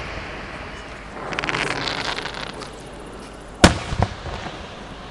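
Fireworks display: a shell's crackling sparks sputter for about a second, then a loud sharp bang of a bursting shell, followed a moment later by a second, smaller bang.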